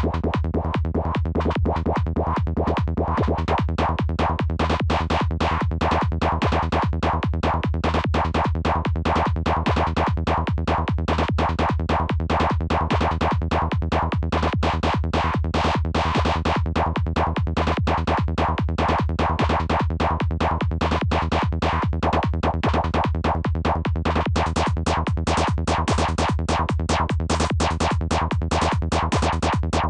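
Albino3 FM synth lead playing a fast, evenly repeating pattern of short notes over a steady low bass, the sound shaped by a low-pass filter on its envelope.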